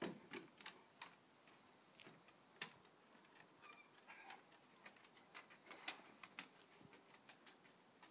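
Faint, irregular clicking and tapping of a dog's claws on wooden porch boards as it walks about, a few light steps a second.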